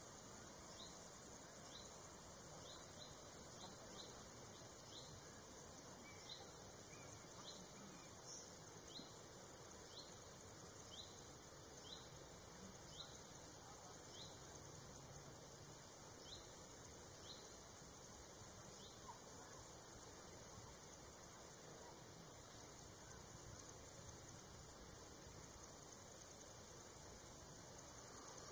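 Steady, very high-pitched chorus of meadow insects chirring without pause. A second caller adds short rising chirps about once a second, which stop about halfway through.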